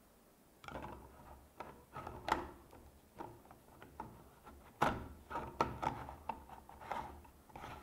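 Plastic parts of a manual hand juicer being handled and fitted together: a string of clicks and knocks with some rubbing as the front section is pushed onto the juicer body, two of the knocks louder than the rest.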